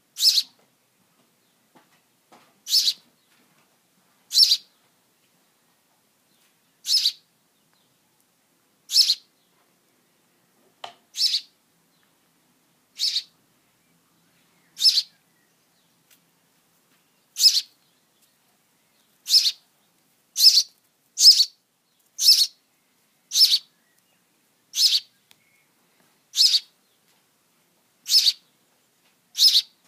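A 12-day-old sparrow nestling giving short, high begging chirps for food, one every second or two, coming faster in the second half.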